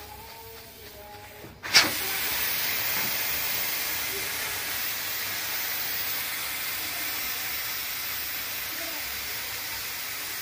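Aluminium pressure cooker at full pressure, steam escaping past its weight valve in a loud, steady hiss that starts suddenly with a sharp click about two seconds in.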